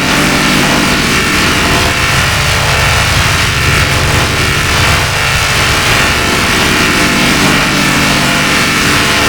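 Robot chip sound effect: a loud, steady, engine-like electronic drone made of many held tones over a dense hiss.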